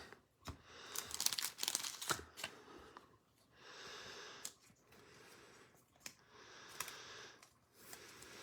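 Faint crinkling and rustling of plastic as trading cards are handled, in a run of short crackly bursts, busiest in the first couple of seconds and then softer rustles.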